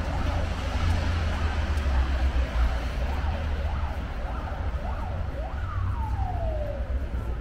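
Emergency vehicle siren in a fast yelp, its pitch sweeping rapidly up and down. It ends in one long falling sweep near the end. A steady low traffic rumble runs underneath.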